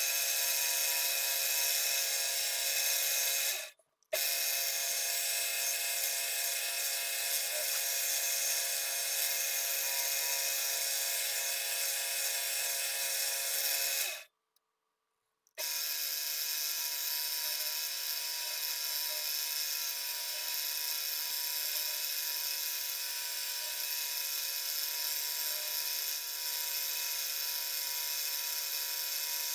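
Manual milling machine spindle running steadily with a whine, drilling and then cutting a slot with a small end mill. The sound cuts out briefly twice, about four seconds in and again about fifteen seconds in.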